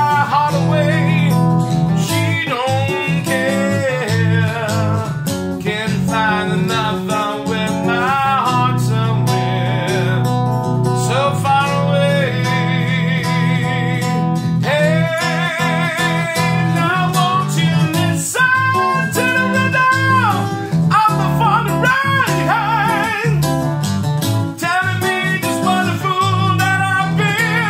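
Acoustic guitar playing an instrumental break: steady low chords with a wavering melody line over them.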